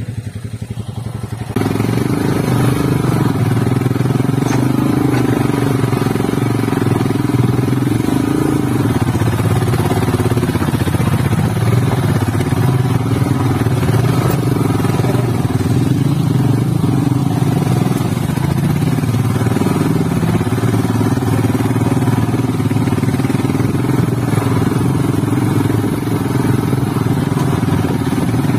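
Motorcycle engine running steadily while riding, heard from the rider's camera; it gets louder about a second and a half in and then holds steady.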